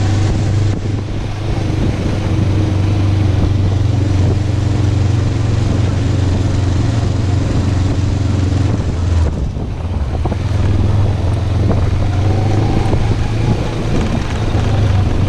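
Motorcycle engine running at low speed, a steady low hum mixed with wind noise on the camera microphone; the engine eases off briefly about nine seconds in, then picks up again.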